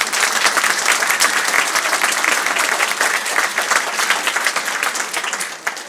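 A seated audience applauding in a hall: dense clapping that dies away near the end.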